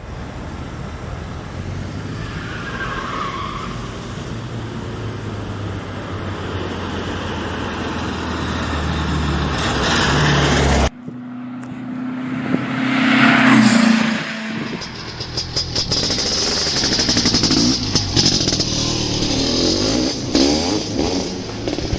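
A vehicle running and driving in two edited clips. A steady drone ends with a hard cut about 11 seconds in. The second clip has a brief rise and fall in pitch and then a quick rattling.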